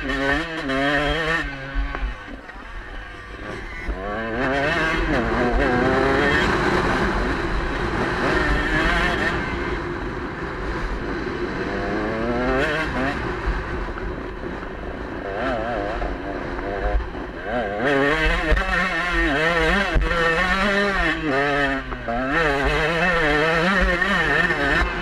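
KTM 125 two-stroke enduro motorcycle engine at race pace, its pitch rising and falling over and over as the throttle is worked, with wind rumble on the microphone.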